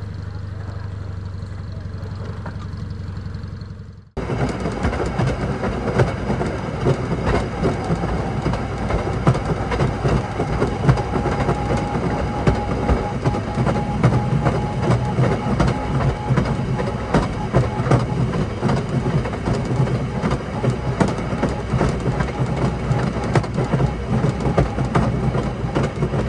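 Rail motorcar (speeder) running along the track: a dense, steady rattle and clatter of its wheels over the rails, full of quick clicks. It starts abruptly about four seconds in, replacing a lower, steadier hum.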